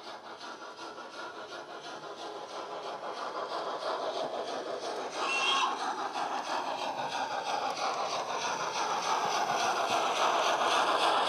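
The DCC sound decoder in a Hornby 'Hush Hush' model locomotive plays steam exhaust beats in heavy load mode: a rapid, even chuffing that grows louder as the locomotive approaches and passes close by. A brief high tone sounds about five seconds in.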